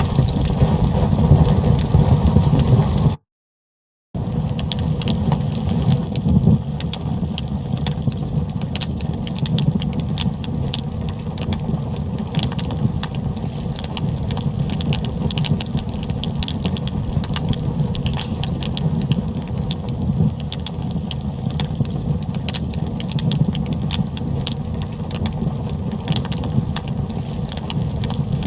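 Fire burning, with a steady low rumble and constant crackling pops. The sound cuts out completely for about a second near the start, then goes on a little quieter.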